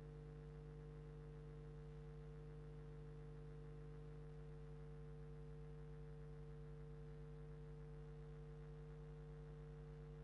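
Near silence with a steady low electrical hum.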